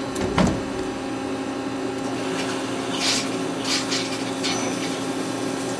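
CNC lathe running a machining cycle: a steady motor and spindle hum, with a short knock near the start and several brief hissing surges in the second half.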